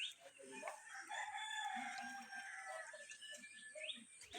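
A rooster crowing once: one long drawn-out call of about two seconds, with small birds chirping around it.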